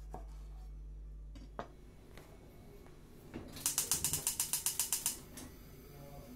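Gas hob burner's spark igniter ticking rapidly, about seven clicks a second for roughly a second and a half, as the burner is lit. A few single light knocks come before it.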